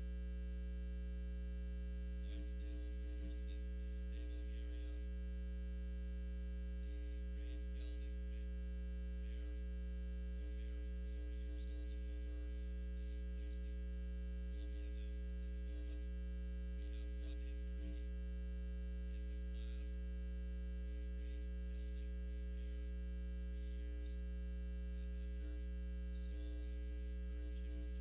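Steady electrical mains hum with a stack of overtones, with faint scattered clicks and crackles over it.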